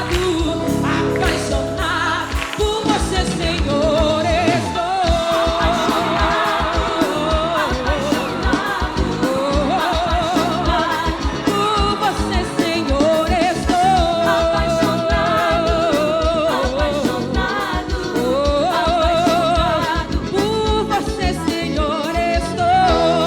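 Live forró band with accordion, bass, drums and brass playing over a steady beat, with a lead voice singing long wavering notes.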